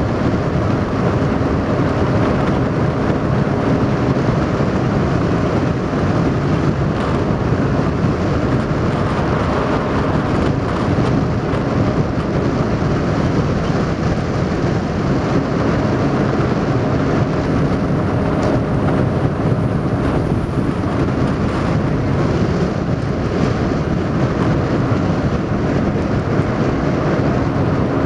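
Steady, loud rumbling noise of a boat under way on open water: wind buffeting the microphone, with water noise from the moving hull.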